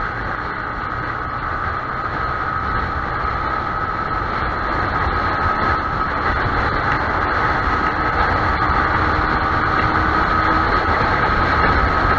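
Riding noise from a Yamaha YZF-R15 motorcycle on the move: wind rush and engine with a steady whine, growing slowly louder.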